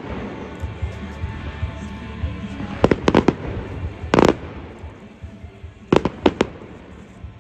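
Fireworks display: a quick string of sharp bangs about three seconds in, a single heavier bang a second later, and another quick string of bangs about six seconds in, over a low rumble.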